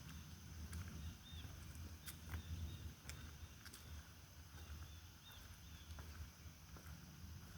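Faint outdoor ambience on a rainy hike: a low rumble of wind on the microphone with scattered light ticks, a steady high hiss, and a few brief faint chirps.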